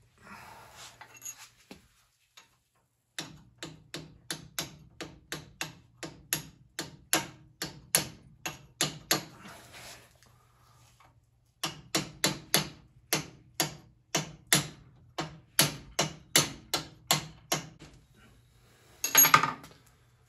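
A hammer striking steel in quick, steady blows, about three a second, in two long runs, knocking seized, rust-loosened bolts out of an old motorcycle's springer fork. A brief scrape comes at the start and a louder clatter near the end.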